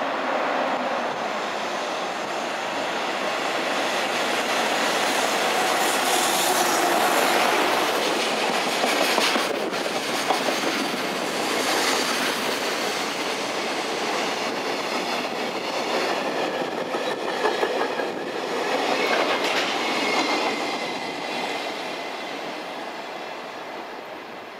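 EF210 electric locomotive and a long container freight train passing, with rhythmic clatter of wagon wheels over rail joints and a thin wheel squeal in the latter half. The noise fades near the end as the tail of the train draws away.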